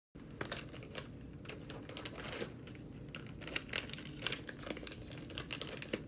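A pregnancy test's wrapper crinkling as it is pulled open by hand and the test taken out: a quick, irregular run of small crackles and rustles.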